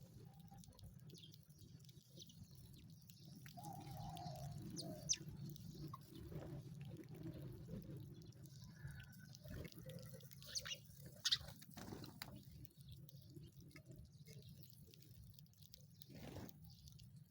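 Faint, sparse chirps of small birds, a few short high notes with scattered light clicks, over a low steady hum.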